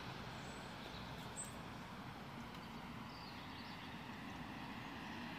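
Steady background hum of distant road traffic, with a few faint high chirps about three seconds in.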